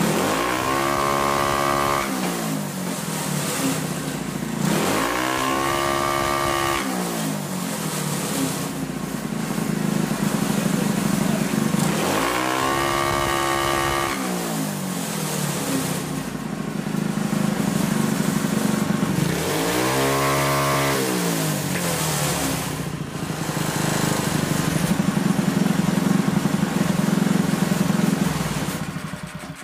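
Modified Predator single-cylinder engine running at a fast idle and revved four times, rising to over 8000 rpm and falling back each time. It cuts off suddenly at the very end.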